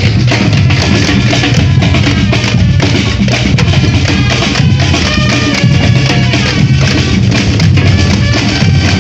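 Loud batucada-style percussion band drumming a dense, driving rhythm, deep bass drums pulsing under sharper drum and wood-block strokes.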